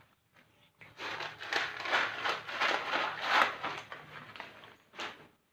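A cat eating from its bowl, chewing and smacking in a quick irregular run of clicks for a few seconds, with one more bite near the end.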